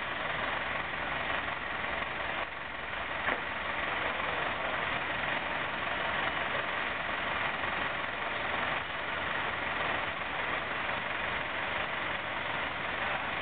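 Crane's engine running steadily at idle, with one brief click about three seconds in.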